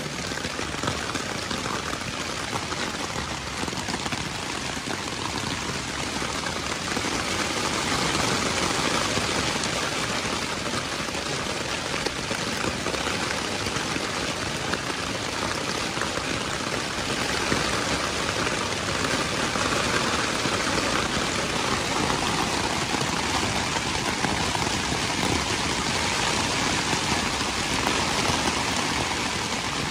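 Steady rain falling on a tent, heard from inside the tent.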